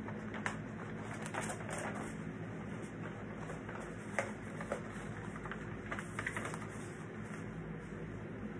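A few scattered light clicks and taps at irregular intervals, over a steady low hum.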